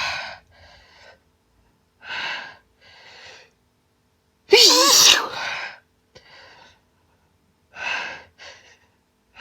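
A woman's hay-fever sneezing fit: the end of one sneeze at the start, short gasping in-breaths, then one loud sneeze about halfway through, followed by more gasping breaths.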